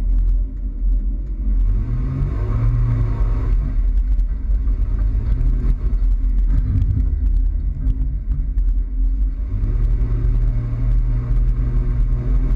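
Toyota Tacoma pickup driving, its engine running under a heavy low rumble; the engine pitch climbs about two seconds in and again about ten seconds in as the truck accelerates, with scattered light clicks over it.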